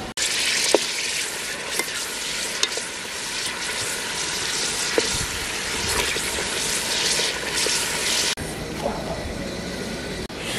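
Octopus cooking in a steaming metal pot over a wood fire, a steady hiss, with a ladle stirring and clinking against the pot a few times. The hiss cuts off suddenly about eight seconds in.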